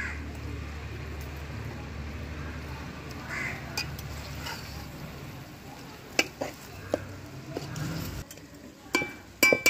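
Metal ladle stirring chicken curry in a large metal pot, scraping through the thick gravy. Sharp metallic clinks of the ladle against the pot come from about six seconds in, several close together near the end, some with a short ring.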